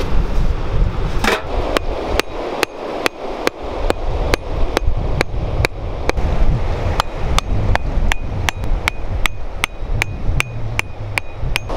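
A hatchet used as a hammer, driving wooden stakes into sandy ground: a long run of sharp blows, at about three a second toward the end. Many of the later blows carry a short metallic ring.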